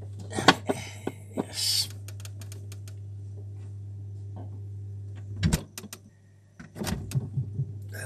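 Clicks, knocks and handling noises as a beer is taken from an open fridge, with a short hiss about two seconds in and two louder knocks later on, over a steady low hum.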